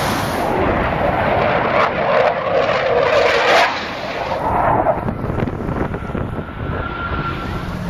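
Jet engine noise of Blue Angels F/A-18 Hornets flying past overhead: a loud rushing sound that drops off sharply about three and a half seconds in, followed by a weaker swell about a second later.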